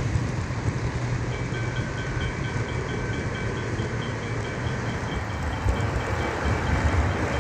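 O gauge model train rolling past on the layout's track: a steady low rumble of wheels and motor, joined about a second in by a fast, even ticking of about five a second.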